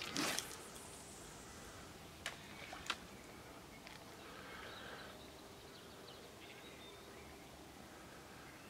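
A fishing rod swishing through a lure cast, with line hissing off the reel and fading over about a second. It is followed by two sharp clicks about half a second apart, then faint birdsong over quiet rural background.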